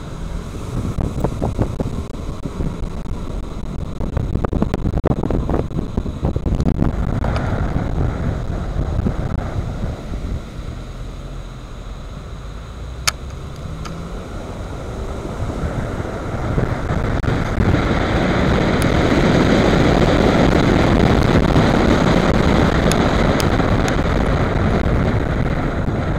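A car driving, heard from inside: steady road and engine noise with some wind on the microphone. The noise swells louder about two-thirds of the way through, and there is one sharp click about halfway.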